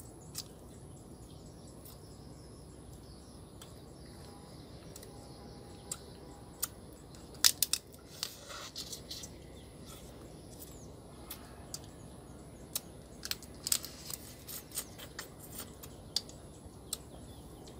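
Mud crab shell being cracked and crunched open while eating, in irregular sharp snaps that bunch together about seven and a half seconds in and again around thirteen to fifteen seconds.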